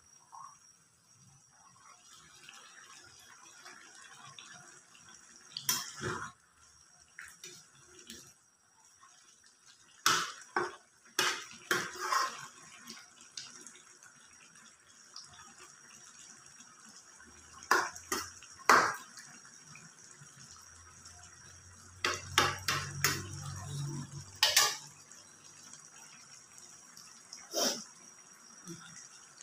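Metal spatula scraping and knocking against a metal wok as a saucy vegetable curry is stirred: scattered sharp clinks and scrapes, several of them in quick clusters, over a faint steady hiss.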